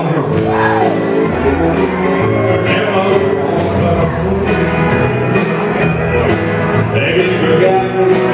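Live country band playing: fiddle, electric guitar and drums, amplified through the room's sound system, with a male singer's voice at times.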